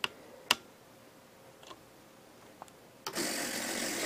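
Two sharp clicks near the start, then about three seconds in the RC servos of a scale 747 model's landing gear doors whir for about a second as the doors swing shut.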